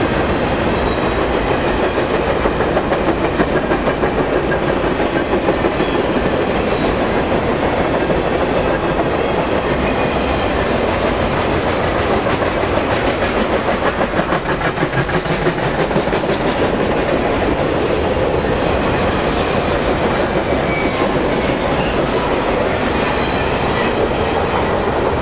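A Norfolk Southern freight train's cars rolling past: a steady rumble with the rapid clickety-clack of wheels over the rails. The last car goes by near the end, and the sound begins to fall away.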